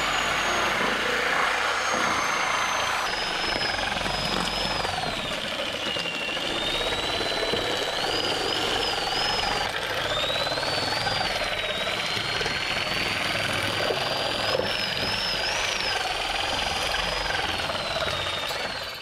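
Electric double-cut metal shear cutting lengthwise along a ribbed metal panel: a high motor whine that rises and falls in pitch with the load, over the rasp of the blades through the sheet. It stops right at the end.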